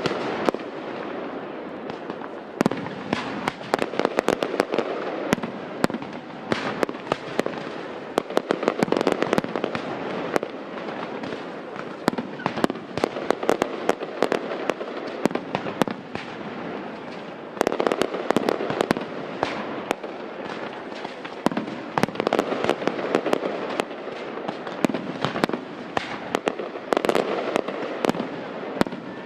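Aerial fireworks display: a continuous run of shell bursts and sharp bangs over a steady crackle, the reports coming in thicker volleys several times.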